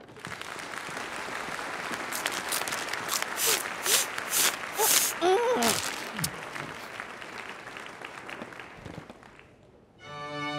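Audience applauding, with a brief voice partway through; the applause dies away, and a string quartet starts playing near the end.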